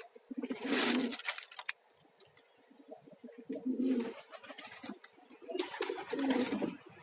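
Domestic pigeons cooing several times in low, humming phrases. Two louder bursts of hissing noise come about a second in and again near the end.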